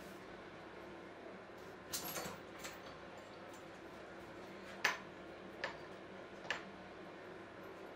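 Small roller wheels in metal brackets being handled and set down one at a time on a plywood board: a few light clicks and knocks, a short cluster about two seconds in, then three single knocks, the loudest about five seconds in.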